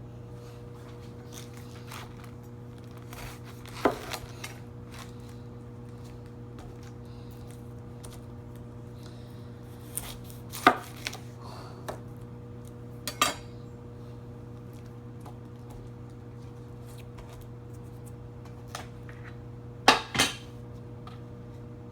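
Kitchen utensils and dishes clinking and knocking several times, separate sharp strikes with the loudest pair near the end, over a steady low hum.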